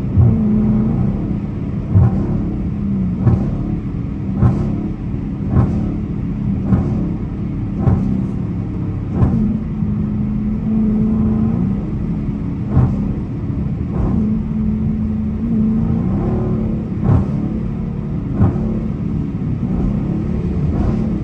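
Dodge Challenger R/T's 5.7-litre HEMI V8 cruising at highway speed, heard from inside the cabin as a steady engine drone over road and tyre noise. A short thump recurs about every one to two seconds, with a few longer gaps.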